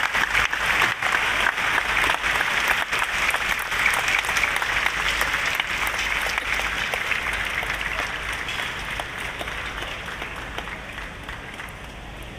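Grandstand crowd applauding at the close of a minute's silence, the clapping gradually dying away.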